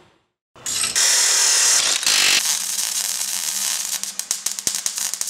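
Sound effects for a channel logo: a loud hissing rush for about two seconds, then a run of sharp mechanical clicks that come faster near the end, over a faint steady hum.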